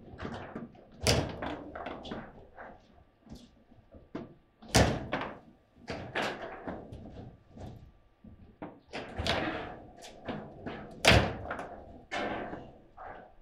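Table football in play: the ball is struck by the rod-mounted players and knocks against the table, with the rods clacking. The sharp knocks come at irregular intervals, the loudest about a second in, near five seconds and about eleven seconds in.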